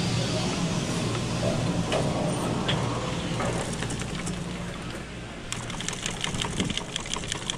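Chairlift machinery running: a steady low hum that fades about two-thirds of the way through, followed by a quick run of clicks and rattles near the end.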